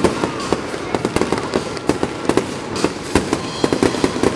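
Aerial fireworks shells bursting overhead in a rapid, irregular string of sharp bangs, about four or five a second, over a continuous crackle.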